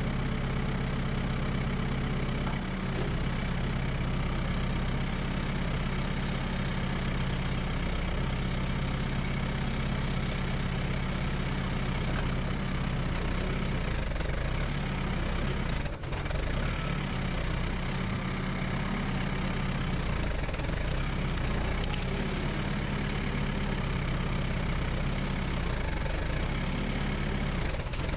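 Kubota tractor's diesel engine running steadily, its pitch shifting slightly now and then as the load changes.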